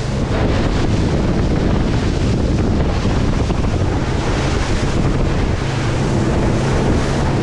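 Wind buffeting the microphone and water rushing along the hull of a fishing boat underway. A steady low engine hum comes through about five and a half seconds in.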